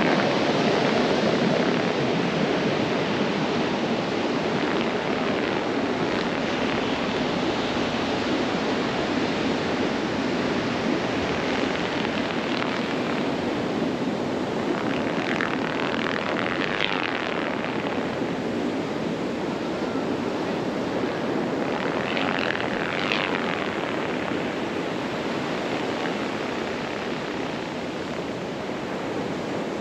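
Steady wind noise, broken twice by spells of whistling that rises and falls in pitch, a little past halfway and again a few seconds later: kites' sound-makers singing as they catch the wind.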